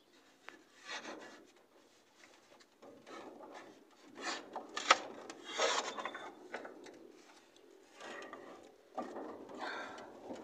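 A heavy cast-iron engine cylinder head scraping and grinding against wooden boards as it is levered and slid off the block by hand, with a sharp knock about five seconds in.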